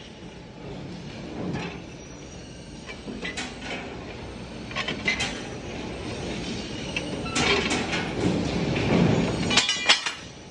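Automatic hydraulic pipe clamp bending machine running, feeding a punched steel flat bar through its rollers. Sharp metal clanks and rattles come every second or two over a steady low machine noise, and the loudest clatter comes near the end.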